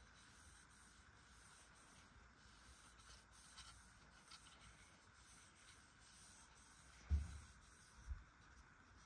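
Cloth rubbing along a wooden hammer handle: a faint, dry, scratchy wiping with small ticks. Two dull low thumps a second apart near the end, the first the louder.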